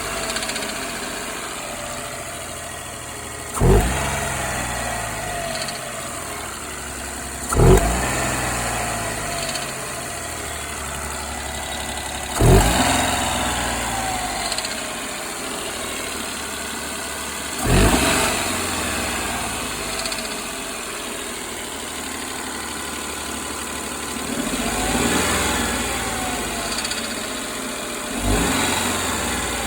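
Daihatsu Esse's small three-cylinder engine idling, blipped six times in short revs that rise sharply and fall back. The owner is showing an abnormal rattle that he links to the timing chain or the control valve on a cold engine.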